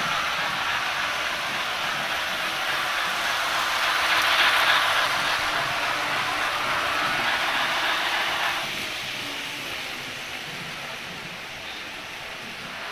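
Märklin HO model steam locomotive and its coaches running at full speed on the track: a steady whirring rattle of wheels and motor. It grows louder as the train passes close, about four seconds in, and drops off sharply at about nine seconds.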